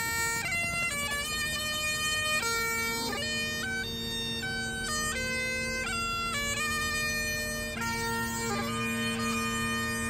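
Bagpipes playing a tune: a steady drone under the chanter's melody, which steps from one held note to the next.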